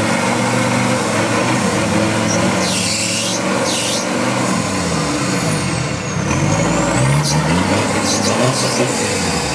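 Off-road trial 4x4's engine revving up and down over and over as the vehicle works its way through deep mud, with a short spell of hiss about three seconds in.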